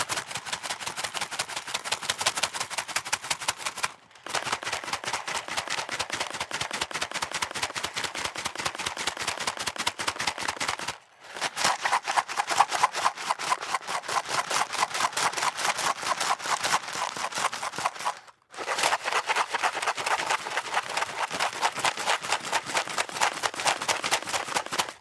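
Cardboard box of dry spaghetti shaken back and forth, the pasta rattling against the box in a fast, even rhythm. Four spells of shaking with brief pauses between them.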